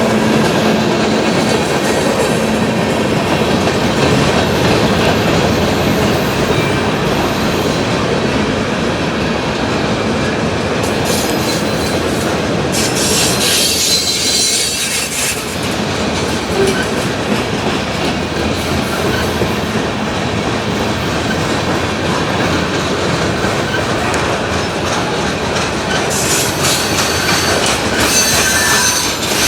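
Freight train cars rolling past at speed: a steady rumble of steel wheels on rail with rhythmic clacking over the rail joints. Brighter, higher-pitched wheel noise comes in about eleven to fifteen seconds in and again near the end.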